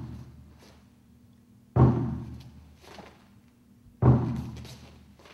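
A large drum struck once every two seconds or so, beating the count for a Tang Soo Do form: a deep boom about two seconds in and another about four seconds in, each ringing out and fading before the next.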